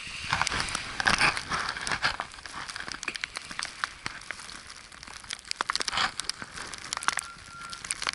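Footsteps crunching in snow, an irregular close-up crunching and crinkling, heaviest in the first couple of seconds and again near six seconds. A faint, steady high beep comes and goes near the end.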